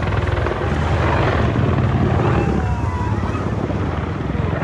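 AH-64 Apache attack helicopter flying overhead, its four-blade main rotor beating in a rapid, steady chop over the engine noise.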